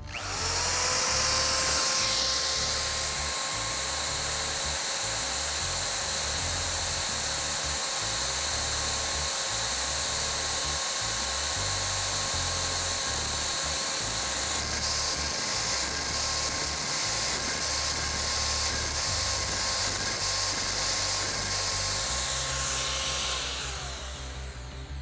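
Cordless drill spinning the piston ring filer's grinding wheel while a diamond dressing tool is passed back and forth across the wheel face to true it. It runs as a steady whine over a grinding hiss, spinning up in the first second and winding down near the end. The pitch holds steady across the face, the sign that the wheel is running true.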